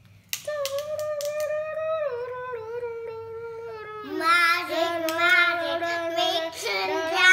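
A young girl singing a wordless tune in long held notes that step down in pitch, with a few light clicks near the start. The singing grows louder and wavers in pitch about four seconds in.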